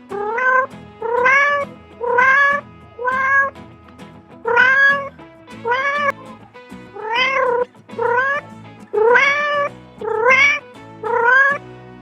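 A cat meowing over and over, about eleven meows at roughly one a second, each rising in pitch.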